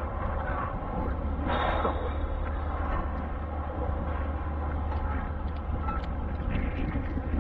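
Steady wind rumble on the microphone over a haze of sea surf, with a brief louder rush about a second and a half in.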